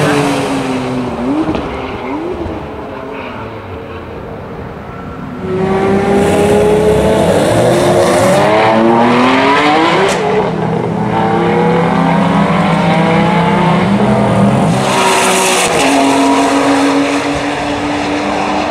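Ferrari 599 GTB Fiorano's 6.0-litre V12 on track. Its pitch falls at the start as a car goes by, then about five seconds in it is revved hard, the pitch climbing, dropping at each upshift and climbing again. It settles to a steadier note near the end.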